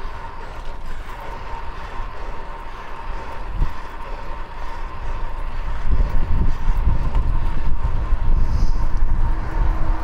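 Wind rushing over the microphone and city traffic while riding a fixed-gear bicycle through the streets, with a steady high hum. The rumble grows louder from about six seconds in.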